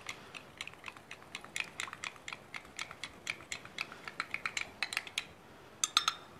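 Metal spoon stirring in a glass jug, clinking against the glass in quick light ticks, about four or five a second, with a few louder clinks near the end. The jug holds the wet mix of melted butter, golden syrup, boiling water and bicarbonate of soda.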